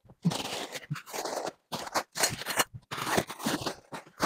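Plastic courier mailer bags crinkling and rustling as the parcels are handled and piled together, in four short separate bursts.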